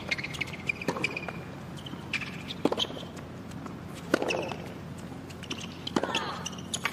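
Tennis rally on a hard court: sharp racket strikes on the ball, roughly every one and a half seconds, mixed with short squeaks of tennis shoes on the court surface.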